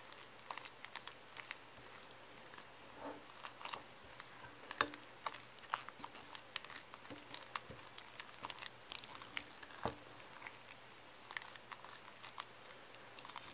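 Thick, wet henna paste being stirred and mashed with a spatula in a bowl: faint, irregular wet smacks and small clicks. The paste is close to a toothpaste-like consistency, with a few dry, crumbly bits still being worked in.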